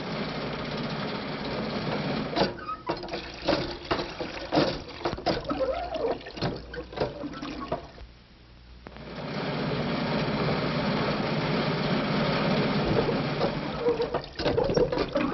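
Radio sound effect of a crippled car driving. A steady engine-and-road noise is broken by a run of clattering knocks, drops out briefly about eight seconds in, then runs steadily again, with more knocks near the end.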